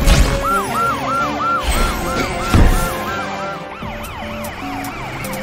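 Cartoon police siren wailing in a fast, repeating rise and fall, about three to four cycles a second, shifting to a higher two-tone wail near the end. Two whooshing hits at the start and about halfway are the loudest sounds, over background music.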